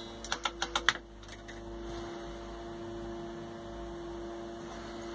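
Steady electrical hum from a powered-up fruit machine under test, with a quick run of about six sharp clicks in the first second.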